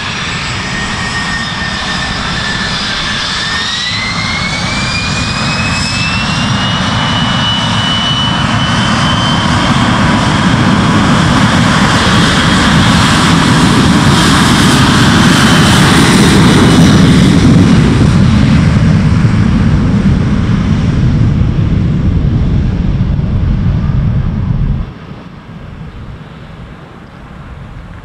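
Boeing 737's twin jet engines spooling up for take-off and the airliner rolling past on its take-off run. A whine rises in pitch over the first several seconds, then a loud engine noise builds to a peak about two-thirds of the way through and eases off. The sound drops away abruptly near the end.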